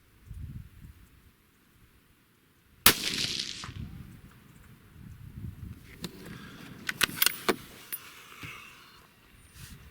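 A single rifle shot about three seconds in, with a short echo trailing after it, followed a few seconds later by a quick run of sharp clicks.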